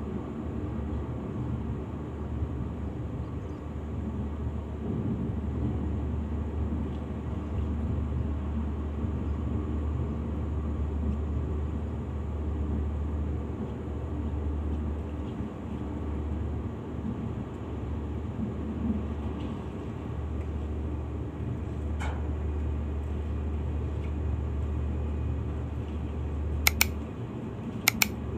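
Steady low engine drone throughout, with a few sharp clicks near the end.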